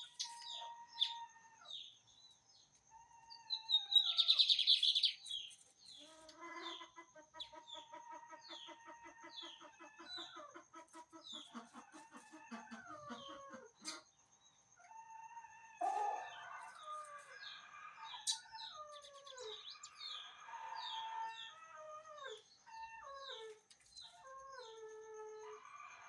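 Lined seedeater (bigodinho) singing a 'torneiro'-type song: long runs of short, quickly repeated falling whistled notes. Chickens cluck and call in the background. There is a brief rushing noise about four seconds in, and a faint steady high tone.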